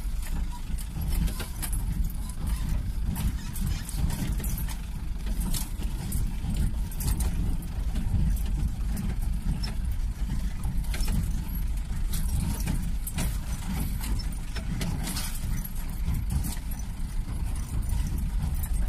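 Nissan tipper truck's engine running with a steady low rumble, while its body rattles and knocks over and over as it lurches along a rough, rutted dirt track.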